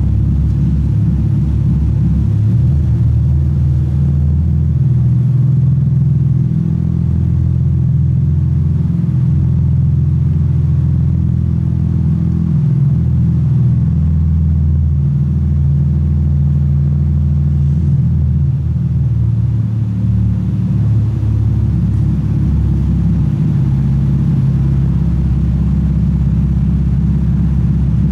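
Naturally aspirated 2JZ inline-six of a Mk4 Toyota Supra idling, a steady low exhaust note with only slight shifts in tone and no revs.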